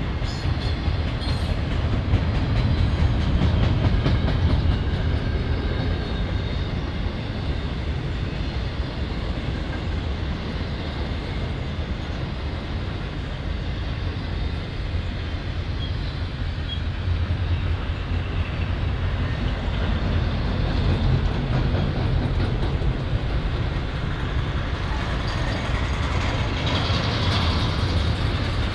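Freight train rolling past on the main line: a steady rumble of cars with wheels clicking over the rail joints. A higher wheel squeal builds near the end.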